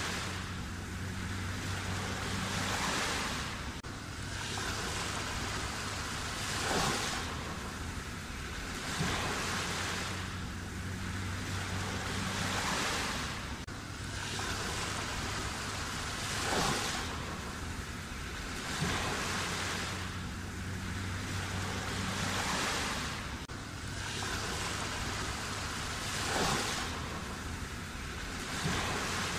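Sea waves breaking and washing in, a rushing swell every two to three seconds.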